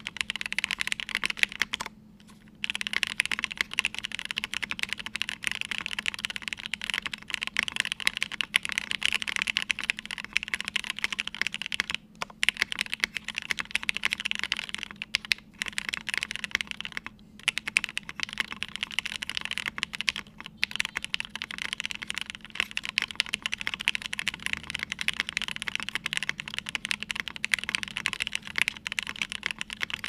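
Continuous typing on a Cake60 mechanical keyboard with lubed and filmed Gateron KS3 Yellow linear switches, a half FR4 plate and ePBT PBT keycaps: a dense run of key clacks with a few brief pauses, one about two seconds in.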